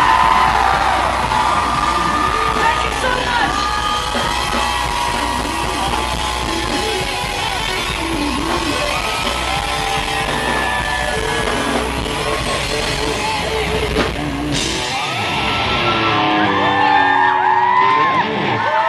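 Live pop concert in a small hall: the band plays out the end of a song while the crowd screams and whoops over it. About fourteen and a half seconds in, the music cuts off and the screaming and cheering carry on.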